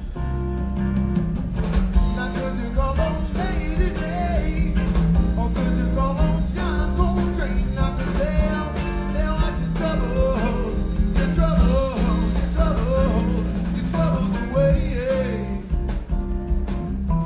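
Background music: a song with a singing voice over a steady bass line and guitar.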